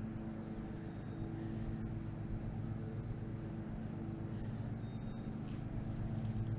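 A steady low engine-like hum from a running motor or vehicle, with brief high chirps twice, about three seconds apart.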